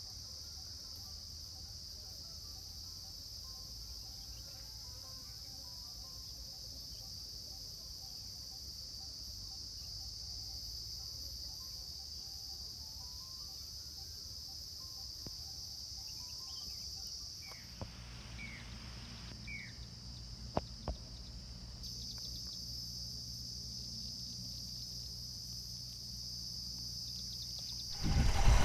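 Steady high-pitched insect chorus, with a few faint bird chirps and a couple of sharp clicks about two-thirds of the way through.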